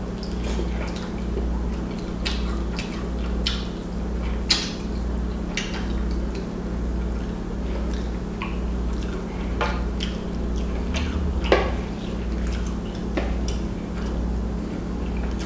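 Close-miked eating: wet chewing and lip smacks, with occasional clinks of a metal spoon against a glass bowl, over a low, regularly pulsing hum.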